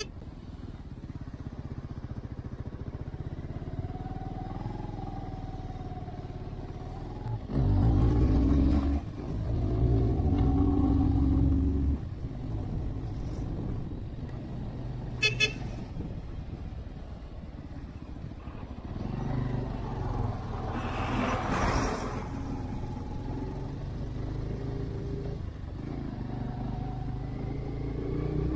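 Motorcycle engine running as the bike climbs a winding hill road, pulling louder for a few seconds about a quarter of the way in. Two short horn toots about halfway through, and a brief rushing noise about three-quarters through.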